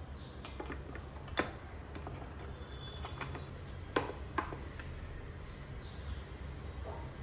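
A few light clicks and knocks of small hard objects being handled, the sharpest about a second and a half in and twice around four seconds, over a steady low hum.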